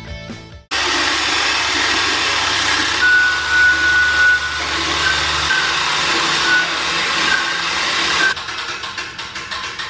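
Genie material lift raising a timber beam: a loud, steady mechanical whirring with a low hum and an on-and-off high whine, which stops abruptly near the end and gives way to a run of rapid, even clicks.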